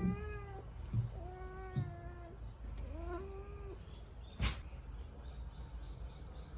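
A calico cat meows three times, the middle meow the longest. A single sharp click follows a second later.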